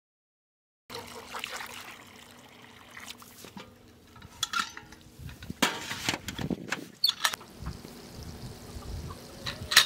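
Water pouring and trickling out of a galvanized metal chicken waterer, followed by a few sharp clanks and knocks as its metal parts are handled, the loudest near the end.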